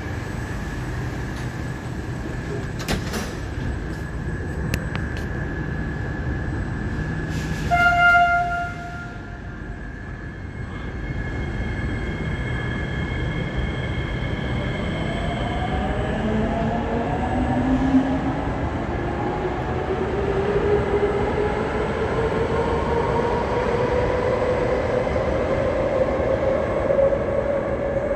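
SMRT C151C metro train sounding a short horn blast about eight seconds in, then pulling away with its traction motors whining in a steadily rising pitch as it gathers speed.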